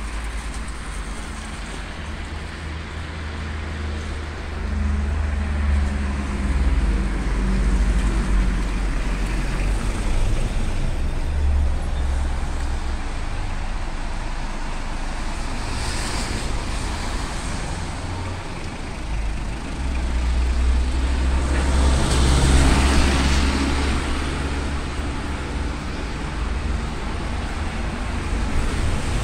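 Wind buffeting the phone's microphone over street traffic on a wet road, with a vehicle passing a little past two-thirds of the way through, its tyres hissing on the wet surface.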